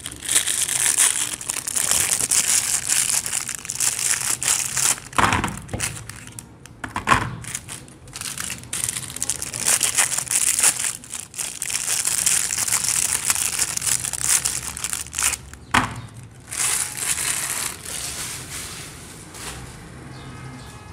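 Clear plastic soap wrappers crinkling and tearing as bars of soap are unwrapped by hand, in stretches with short pauses. There are a few knocks as bars are set down on the tray, and the crinkling gets quieter near the end.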